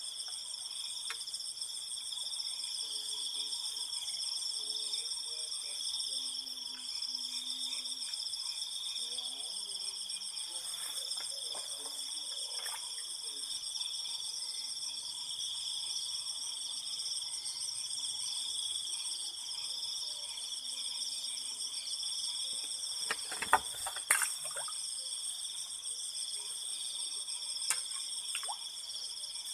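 A steady night chorus of crickets, shrilling at several pitches at once without a break. A few sharp clicks or knocks cut through it about three quarters of the way in, and once more near the end.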